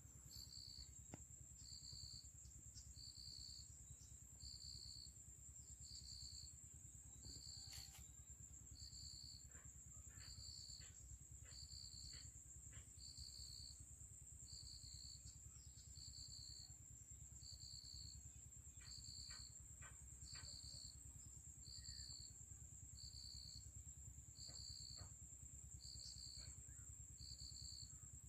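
Faint insect chorus: one insect trilling in a continuous high pitch while another chirps in a steady rhythm about once a second, over a low steady rumble.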